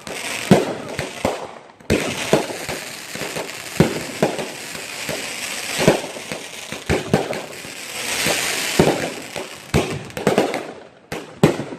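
Fireworks going off: a steady hissing spray with many sharp cracks and pops at irregular intervals.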